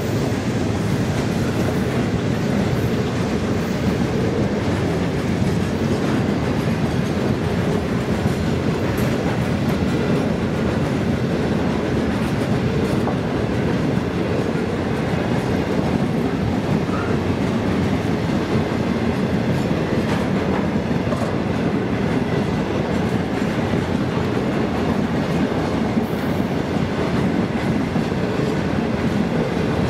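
Freight train's flat wagons rolling past, their steel wheels clattering over the rail in a steady, loud rumble.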